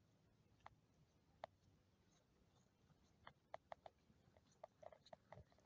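Near silence with faint, scattered short clicks, more frequent in the second half.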